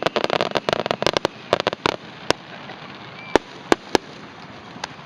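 Fireworks bursting: a dense, rapid crackle over the first two seconds that thins out into a few scattered sharp pops.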